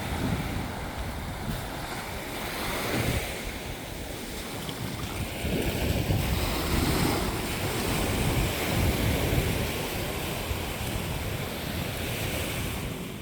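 Ocean waves washing onto a beach, with wind buffeting the microphone in low rumbling gusts. The surf swells louder a few times.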